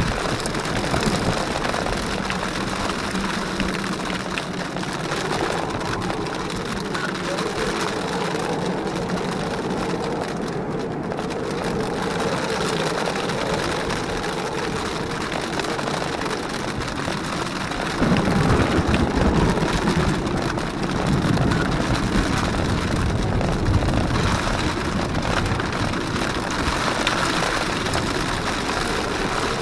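Jeep Wrangler JKU driving over a rocky trail in rain, its engine running under a steady hiss of rain and tyre noise. It gets louder and rougher in the low range about two-thirds of the way through.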